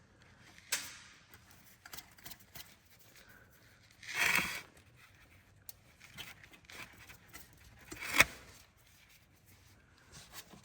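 Metal parts handled while exhaust manifold bolts are fitted on a diesel engine: a click a little under a second in, a short scraping rattle about four seconds in, and a sharp metallic clink about eight seconds in.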